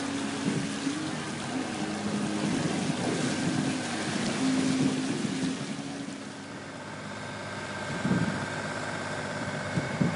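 Wind and water rushing past a yacht under way: a steady noisy rush with a low hum that shifts in pitch. It eases a little after about six seconds, and wind thumps on the microphone near the end.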